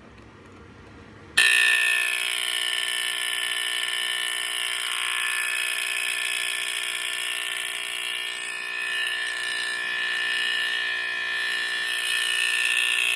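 Edwards 217 smoke alarm sounding, starting about a second and a half in and holding one steady, unbroken alarm tone.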